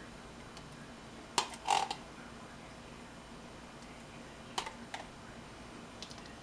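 A serving spoon clinking and scraping against a cooking pot and a glass baking dish as chili is spooned over hot dogs: a few light clicks, a louder cluster about a second and a half in, two more clacks a few seconds later and a faint few near the end.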